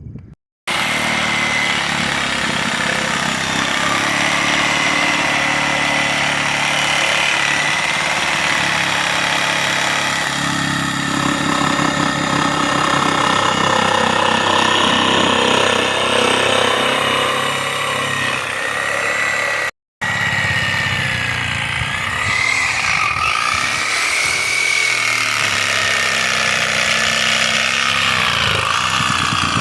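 Engine of a working machine running steadily under load for most of the first twenty seconds, with a high whine over it. After a brief break, the engine note rises and falls repeatedly as it works.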